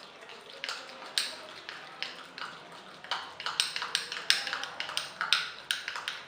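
Cake batter being stirred in a mug, the utensil clicking and tapping irregularly against the mug's sides, the clicks coming faster from about halfway through.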